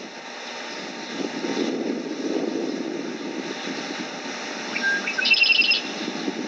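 Low motor rumble that swells about a second in, with a quick, high, rapidly pulsed chirp near the end.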